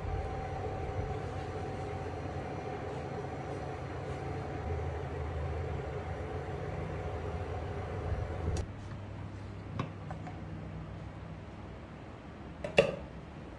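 Induction hob heating a covered pan of rice: a steady hum with a low rumble and faint held tones, which stops abruptly about two-thirds of the way through. After it, a light click and then a sharp clink near the end.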